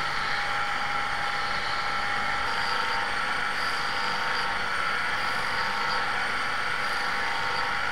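Polishing lathe running with a steel golf iron head pressed against its spinning abrasive wheel: a steady grinding hiss with a constant whine, as the first 'cutting out' stage takes the marks out of the metal.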